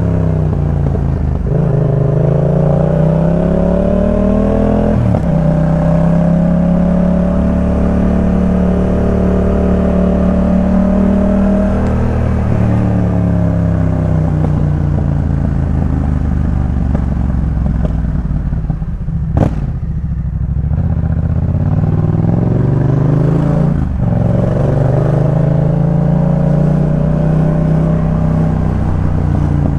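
Yamaha MT-07 parallel-twin engine through a Jeskap K4 full aftermarket exhaust, heard while riding. It pulls up through the revs with a sharp drop at an upshift about five seconds in, then holds a steady cruise and eases off. After a sharp click about two-thirds of the way through, it accelerates again through another shift.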